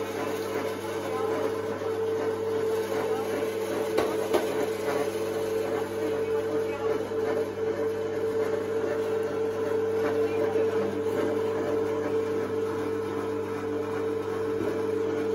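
Alveored electric meat grinder running with a steady hum while mincing meat, the chunks pushed through its feed throat and extruded as ground meat.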